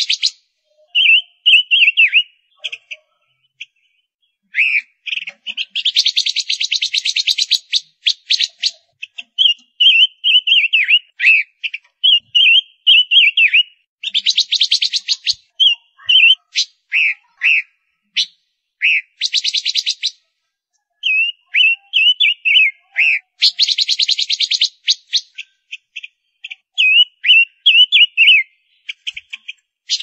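Female silver-eared mesia calling: short, slurred whistled phrases, broken four times by a fast, dry rattling chatter that lasts a second or two each time.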